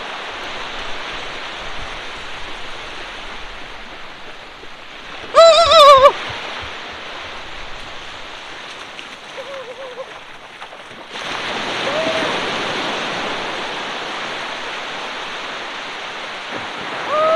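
Sea surf breaking and washing on the shore, a steady rushing noise that gets louder about eleven seconds in. A person's voice calls out briefly about five seconds in.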